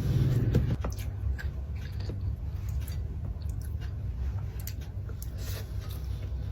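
Close-miked chewing of a mouthful of food, with scattered small wet mouth clicks and smacks over a steady low hum.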